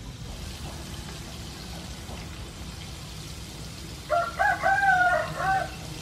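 A rooster crows once, about four seconds in, the loudest sound here, over the steady sizzle of battered squid frying in a pan of oil.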